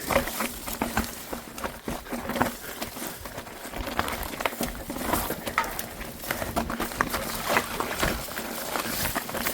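Footsteps and rustling along a trail: irregular crunches, scrapes and clicks of feet and gear moving through brush, over a steady hiss.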